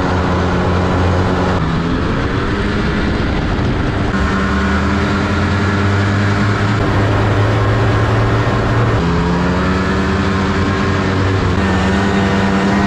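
Snowmobile engine running under way, its pitch holding for stretches and shifting up and down with the throttle, then falling near the end as the machine slows.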